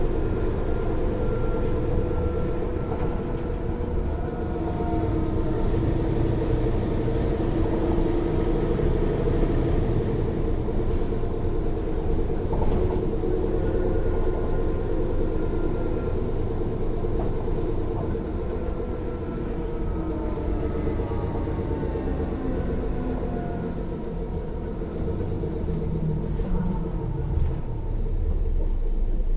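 Interior sound of a Mercedes-Benz O 405 N1 city bus under way: the loud diesel engine runs with a whine from the rear axle gear, the whine drifting in pitch as road speed changes. The sound eases off for a few seconds about two-thirds of the way through, then a rising note comes in near the end as the bus pulls away again.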